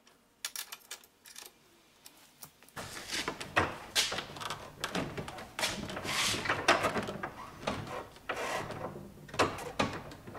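A few faint clicks, then repeated scraping and rubbing swells from about three seconds in as the wagon's wooden front wheel is turned by hand, its rubber tire rubbing against the angled roller on the side of the box.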